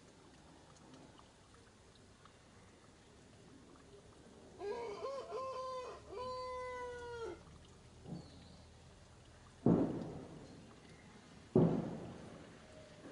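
A drawn-out animal call in several parts, a few seconds in, ending on a long held note that falls away. Near the end come two loud, dull thumps, each with a short rumbling tail; these are the loudest sounds.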